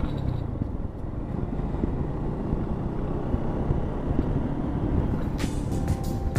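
Steady wind and road noise of a motorcycle under way, heavy in the low end. Near the end, a string of sharp, regular beats begins.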